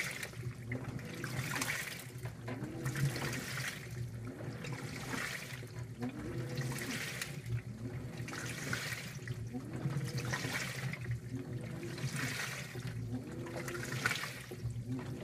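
2012 LG top-load washer agitating a large load in the wash phase: water and clothes slosh in a rhythmic surge every second or two. The motor's whine rises and falls with each stroke, over a steady low hum.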